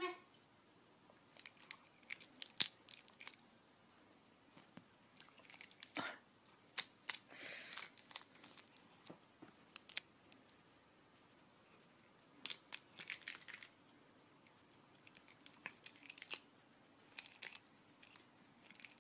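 Cellophane wrapper of a hard candy crinkling in irregular short bursts of rustles and clicks, as it is handled and a cat bites at it.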